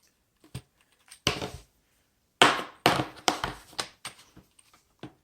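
Handling noise as a power strip is pressed onto a pedalboard with Velcro: scattered clicks and knocks, with two louder short rasping bursts, one just over a second in and a longer one about halfway through.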